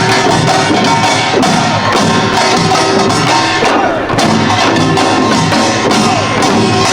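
Korean pungmul band playing Imsil Pilbong nongak: small hand gongs, drums and janggu hourglass drums beating a fast, dense rhythm, with gong tones ringing over it.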